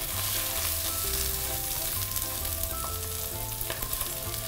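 Skin-on chicken breast sizzling steadily in olive oil with sprigs of thyme, searing skin-side down in a pan over low heat.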